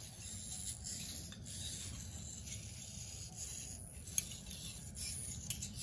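Hobby servo motors of a small eight-servo biped robot whirring in uneven swells as it steps, with a single sharp click about four seconds in.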